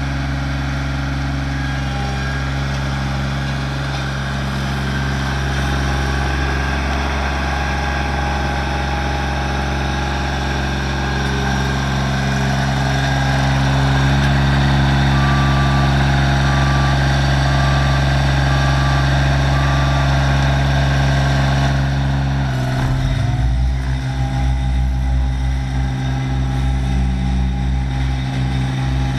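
Dynapac ride-on tandem road roller's diesel engine running steadily as the machine rolls over dirt. About three-quarters of the way through, the low drone turns uneven and pulsing.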